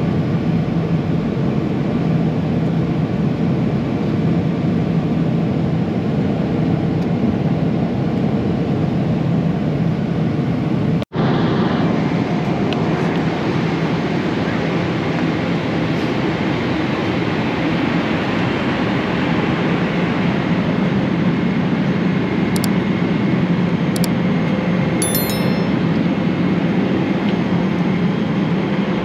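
Steady cabin noise of a Boeing 777-300ER in cruise: the low, even rush of airflow and engines heard from inside the economy cabin. It breaks off for an instant about eleven seconds in, and a few faint clicks come near the end.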